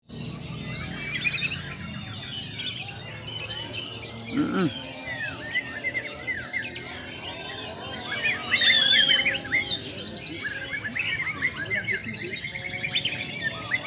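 Several caged white-rumped shamas singing at once: a dense, varied stream of whistles, chirps and quick trills, with a fast run of repeated notes near the end.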